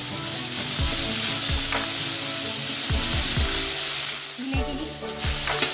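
Chopped onion, green chillies, garlic and ginger sizzling in hot oil in a black kadai as they are stirred with a wooden spatula, with several soft knocks of the spatula against the pan.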